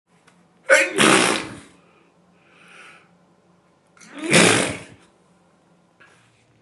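A woman sneezing loudly twice, each a sudden blast that fades over about a second, with her bottom denture out.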